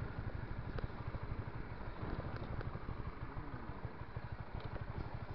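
Motorcycle engine running steadily as the bike is ridden, a fast even train of low firing pulses heard from the rider's seat.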